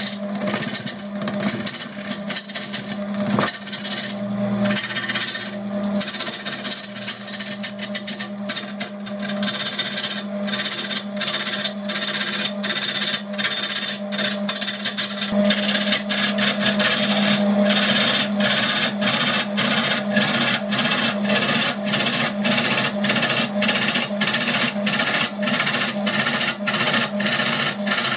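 Turning gouge cutting into a large log spinning on a Burt wood lathe: a rasping hiss of shavings tearing off, pulsing a few times a second over the lathe's steady hum. The cut grows louder and more even about halfway through.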